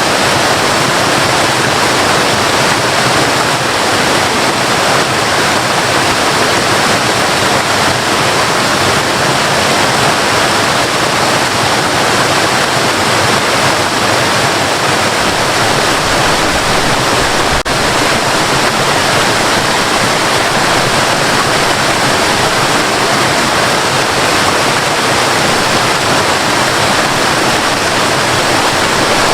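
Waterfall: water rushing and crashing in a dense, steady roar, with one momentary break a little past halfway.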